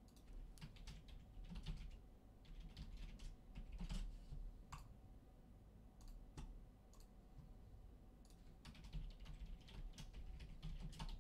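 Computer keyboard being typed on, faint clusters of quick keystroke clicks, thinning out in the middle before a second run of typing.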